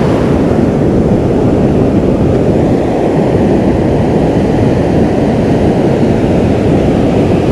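Ocean surf breaking on the beach, mixed with wind buffeting the microphone: a loud, steady low rumble.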